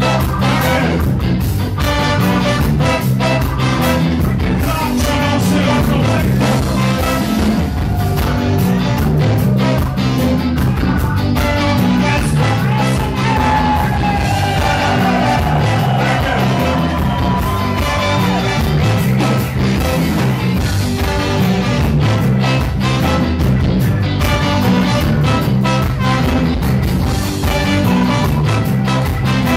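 A live ska band plays with a horn section of tenor saxophone, trumpet and trombone over a drum kit, keeping a steady beat. About halfway through, a melody line bends and slides in pitch for a few seconds.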